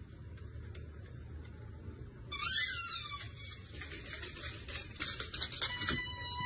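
Husky vocalizing: a loud, high, wavering yelp that bends down in pitch about two seconds in, then scattered clicks of its claws on a wooden floor as it runs, and a long, steady high-pitched whine near the end.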